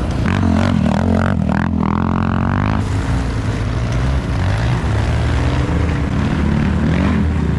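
Small recreational vehicle engine running steadily with a low drone. In the first three seconds a higher whine climbs in pitch and then cuts off.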